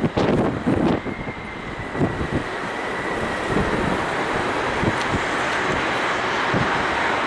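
Boeing 747-400F freighter's four jet engines on final approach, a steady roar that grows louder as the aircraft closes in. A faint whine falls slightly in pitch over the first few seconds, and wind gusts buffet the microphone in the first couple of seconds.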